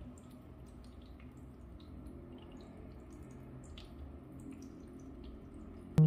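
Rain cloud humidifier's water drops falling from its cloud-shaped top into the water tank: a soft, irregular patter of small drips over a low steady hum.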